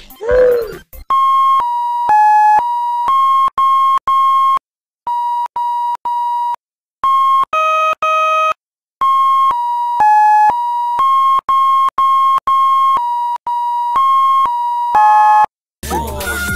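A tune of electronic beeps: buzzy, square-wave-like tones around 1 kHz, each about a third to half a second long, stepping between a handful of pitches with short gaps and two longer pauses. It starts about a second in, after a short vocal cry, and near the end gives way to busy music with voices.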